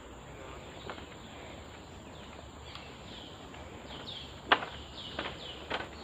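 Footsteps on a slatted boardwalk, with a few sharp knocks in the second half, over a bird's repeated short high calls that fall in pitch.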